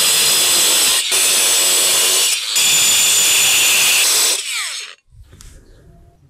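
Angle grinder with a stone-cutting disc cutting the nose out of a roof tile, a loud steady whine with two brief breaks about one and two and a half seconds in. About four and a half seconds in it stops, and the disc winds down with a falling whine.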